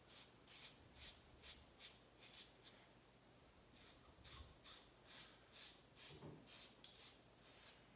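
Safety razor with a Feather double-edge blade scraping stubble on the cheek in short upward strokes. The strokes come as faint, quick scratchy rasps, about three a second, with a short pause a little before the middle.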